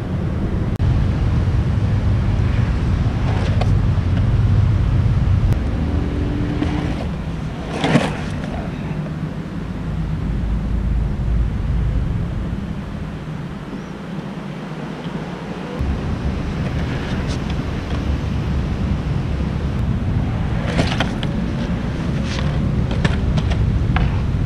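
Skateboard wheels rolling and carving over a concrete bowl: a steady low rumble, with a sharp clack about eight seconds in and a few more knocks near the end.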